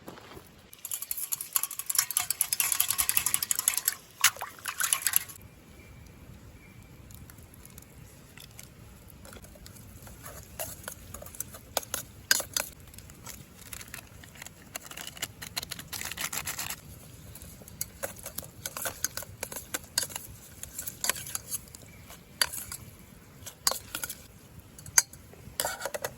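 Handling noises of camp cooking: a few seconds of dense rustling about a second in, then scattered clicks and clinks of cookware and utensils, with another stretch of softer rustling midway.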